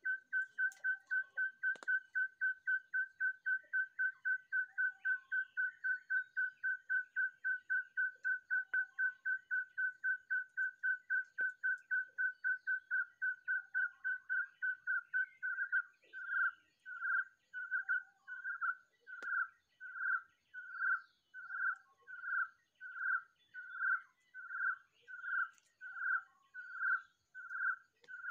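A bird call: one clear whistled note repeated very evenly at a single pitch, about three to four times a second. About fifteen seconds in it slows to longer notes, about one and a half a second.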